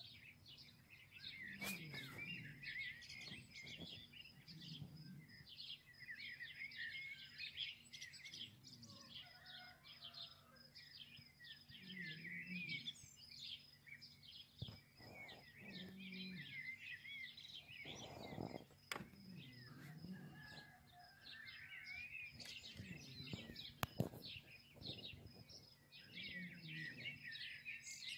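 Faint chorus of small birds chirping and twittering, many short calls overlapping without pause.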